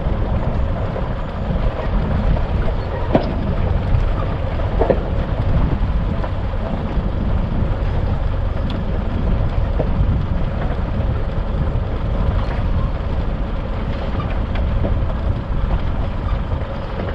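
Isuzu D-Max 4WD driving on a rough dirt track: a steady low rumble of engine, tyres and wind, with occasional sharp knocks and clicks from the bumpy ground, the strongest about three and five seconds in.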